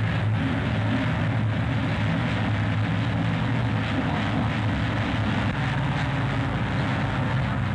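A formation of propeller biplanes flying overhead, their engines making a steady droning hum, heard through a steady hiss.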